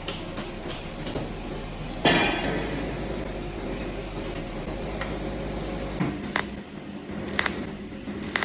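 Orbital TIG welding machine running with a steady low hum that stops about six seconds in. A loud metallic clank rings out about two seconds in, and a few sharp clicks follow near the end.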